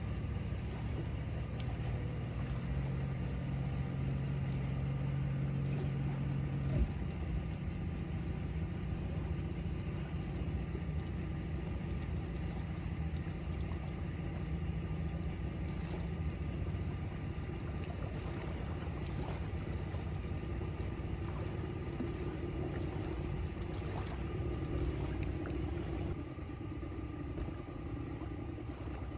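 Engine of a 1977 runabout boat idling steadily just after it finally started, left running to warm up before the boat sets off. There is a single knock about seven seconds in.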